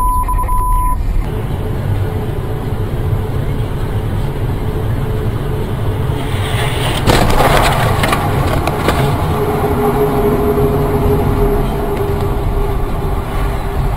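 Car road noise picked up by a dash cam: steady low tyre and engine rumble with hiss. An electronic beep sounds in the first second. About halfway through, a louder burst of clattering knocks lasts around two seconds.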